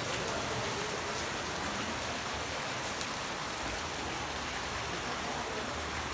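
Rain falling steadily.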